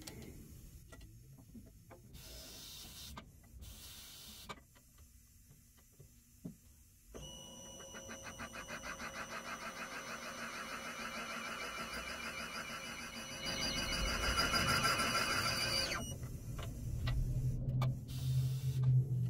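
A valve seat machine's spindle spins a three-angle cutter into a valve seat of a John Deere 6068 cast-iron head, giving a steady whirring cut with a fast rhythmic chatter. It starts about seven seconds in, grows louder about thirteen seconds in, and stops abruptly about sixteen seconds in. Two short hisses come before it, about two and four seconds in.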